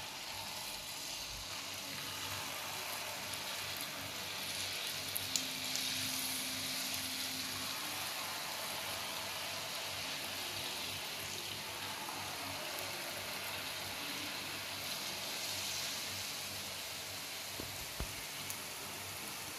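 Jalebi batter frying in hot oil in a frying pan: a steady sizzling hiss as fresh spirals of batter are piped into the oil.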